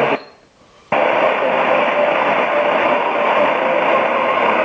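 Medium-wave AM radio on a portable shortwave receiver: the audio cuts out for under a second near the start, then comes back suddenly as steady static and noise with faint tones in it.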